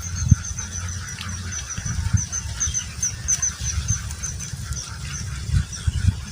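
A high, thin chirping call repeated evenly at about five notes a second, fading out about five seconds in, over a low rumble.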